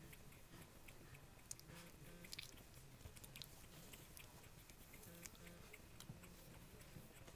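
Near silence with faint scattered clicks and rustles: a young Havanese puppy wriggling on a blanket under a person's hand, mouthing at the fingers.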